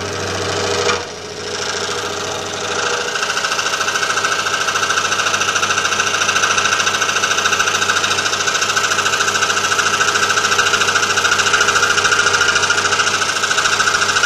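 Scroll saw running with a fine jeweler's blade cutting through metal sandwiched between thin plywood: a steady, rapid chatter of blade strokes. It grows a little louder about three seconds in and then holds even.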